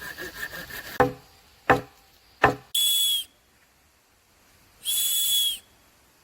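Three sharp knocks about two-thirds of a second apart from the hammer-faced back of a camping hatchet's head striking, then two short shrill blasts of a survival whistle, the second a little longer.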